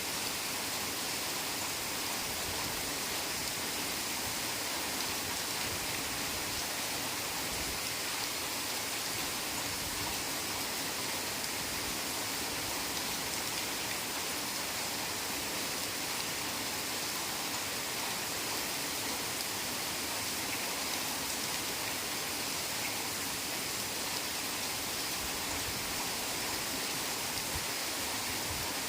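Heavy rain falling steadily on forest foliage: a dense, even hiss of drops with no breaks or distinct splashes.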